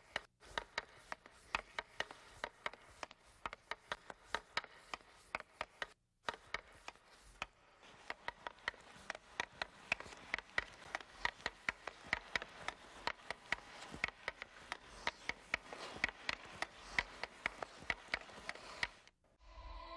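Hockey stick blade knocking a puck from side to side on ice during stickhandling: a run of sharp taps, about three a second, that breaks off briefly about six seconds in.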